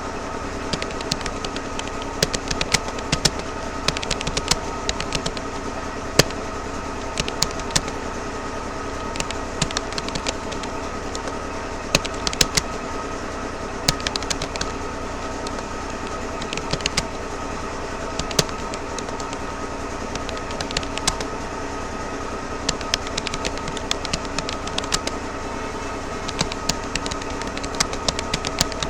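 Keystrokes on a Rapoo computer keyboard during touch typing: quick, irregular clicks, several a second, with short pauses, over a steady hum.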